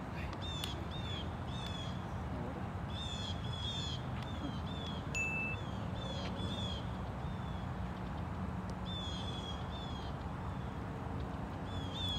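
Birds calling outdoors: bursts of short, high, hooked chirps, three or four in a row, repeating every couple of seconds, with one brief steady whistled note about five seconds in, over a steady low background hum.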